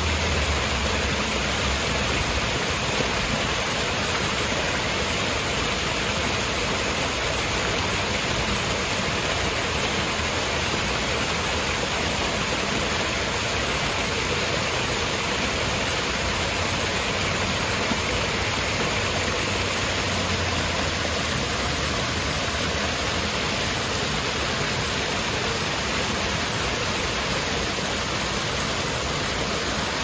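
Small waterfall spilling and splashing over rocks, a steady rushing of falling water.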